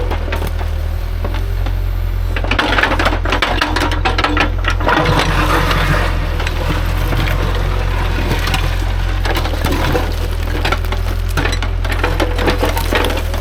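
Heavy diesel construction machine running steadily while rocks and dirt clatter and scrape. Dense rattling and knocking starts about two and a half seconds in.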